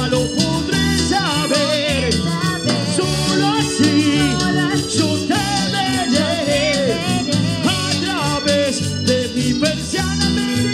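Live cumbia band music with a woman singing into a microphone over a steady dance beat.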